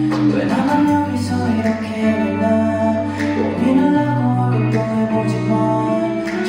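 A male singer sings a song live over instrumental backing with guitar, played through a concert PA during a sound check.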